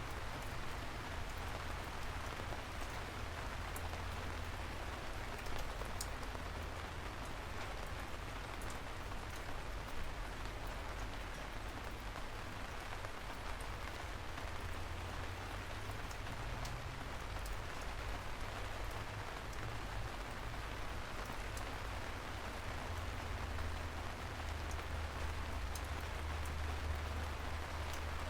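Steady rain falling, an even hiss with scattered sharp drop ticks and a low rumble underneath.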